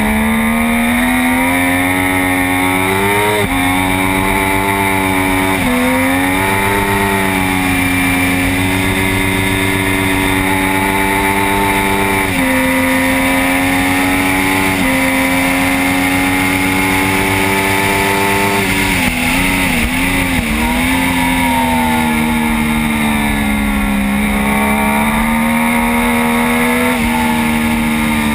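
Triumph Daytona 675 three-cylinder engine at racing speed, its pitch climbing through the gears with quick drops at each upshift, then a burst of downshifts under braking about two-thirds of the way in before it pulls hard again. Steady wind rush runs underneath.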